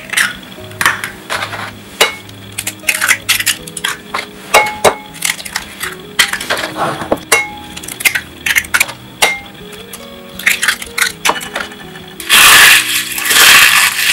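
Eggshells tapped and cracked against the rim of a ceramic bowl, a run of sharp clicks and clinks one after another. About twelve seconds in, a louder continuous crunching as the empty eggshells are crushed by hand in a bowl.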